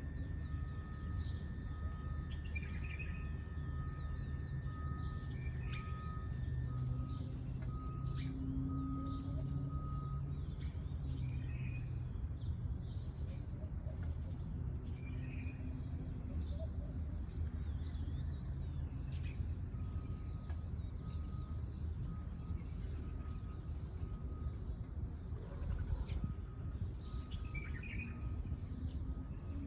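Sparrows chirping, many short overlapping chirps, over a steady low rumble of background noise.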